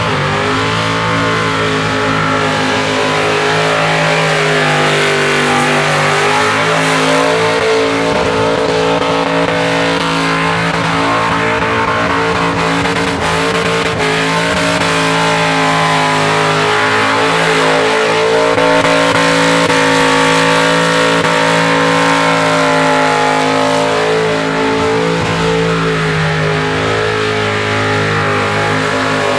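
Burnout car's engine held at high revs, the note wavering up and down a little but never dropping, while its rear tyres spin and smoke.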